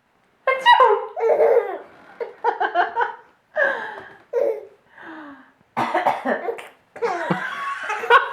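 A baby laughing in a series of short, breathy bursts, about seven runs of laughter with brief pauses between them.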